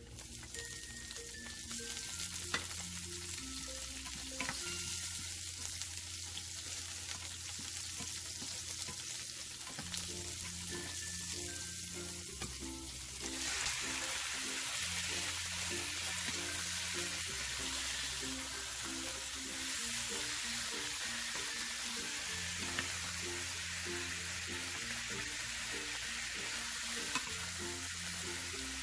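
Ginger, garlic and onion sizzling in oil in a frying pan while being stirred with a wooden spoon, with a few sharp taps of the spoon against the pan. About 13 seconds in the sizzle gets louder and fuller as raw chicken pieces go into the hot pan and are stirred.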